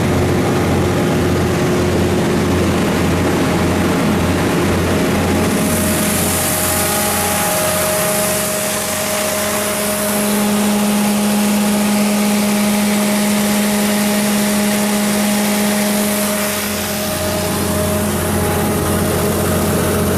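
Cummins diesel engine of a Doosan G290 portable generator running steadily. A low throbbing pulse gives way about six seconds in to a steadier hum.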